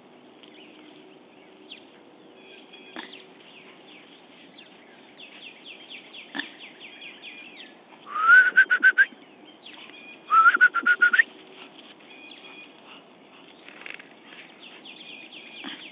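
Small birds chirping continuously, with two much louder calls about eight and ten seconds in, each rising in pitch and broken into quick pulses for about a second.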